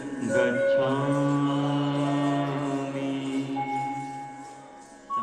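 Devotional chant music: long held sung notes of a slow Buddhist refrain, fading away over the last couple of seconds, with a brief new note starting at the very end.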